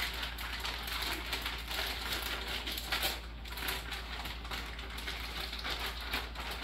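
Gallon plastic zip-top bag crinkling and rustling as it is shaken and turned over, coating walleye fillets inside in oil and blackening seasoning. The rustle is continuous, with a short lull a little after three seconds in.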